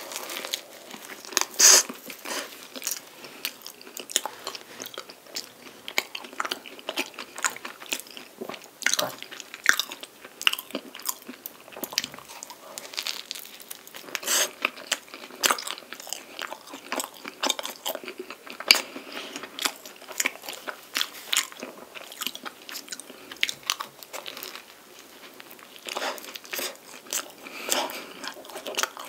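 A person biting into and chewing a crisp, flaky pastry filled with whipped cream and sweet red bean paste: repeated crackly crunches of the crust among softer chewing, with the loudest crunch about two seconds in.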